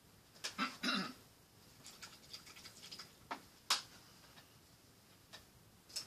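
Scattered light taps and clicks of a paintbrush worked against a paint palette, with a short busy cluster about half a second in and two sharper clicks a little past the middle.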